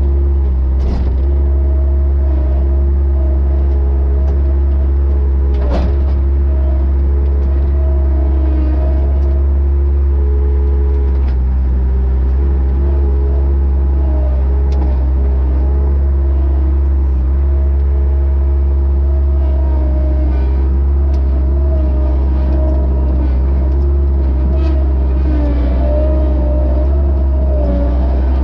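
Skid-steer loader's engine running steadily at working throttle, with a hydraulic whine that shifts in pitch as the grapple and lift arms are worked. Two sharp knocks are heard, about a second in and again around six seconds.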